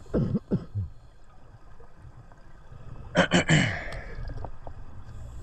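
Underwater gurgling from a scuba diver's bubbles, picked up through the camera housing: a short bubbling burst right at the start and a louder crackling one about three seconds in, over a low steady water rumble.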